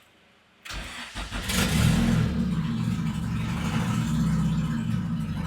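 Turbocharged Honda B20 four-cylinder engine in a 1995 Acura Integra on its first start-up after an oil prime: the starter cranks briefly and the engine catches about a second and a half in, then runs steadily.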